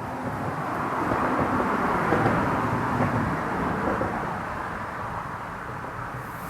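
A vehicle passing by, its noise swelling to a peak about two seconds in and then slowly fading away.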